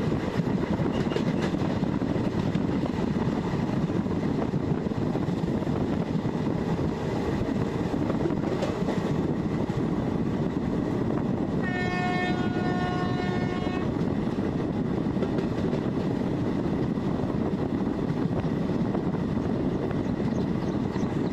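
A moving passenger train running on the track with a steady rumble and clatter of wheels on rails. About halfway through, a train horn sounds once for roughly two seconds.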